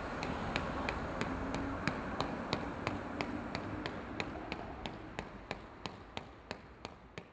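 Sharp, evenly spaced taps, about three a second, over a low rumble, the whole fading out near the end.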